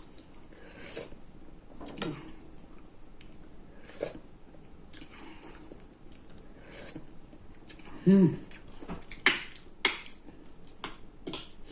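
Close-up eating sounds: chewing and biting, with a spoon or fork clicking against a dish several times, most sharply after about nine seconds. A short voiced sound comes about eight seconds in.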